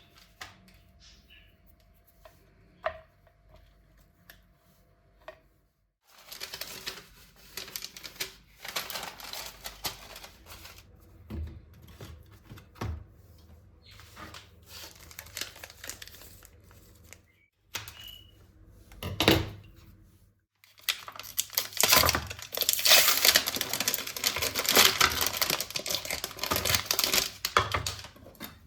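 Paper or plastic packaging being handled, crinkled and torn, with a few light knocks of objects being set down. The rustling starts suddenly about six seconds in and is loudest near the end.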